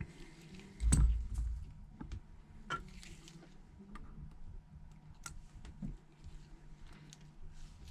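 Small tools and phone parts being handled on a work surface during an iPhone 8 screen repair: scattered light clicks and taps, with a louder dull bump about a second in, over a faint steady hum.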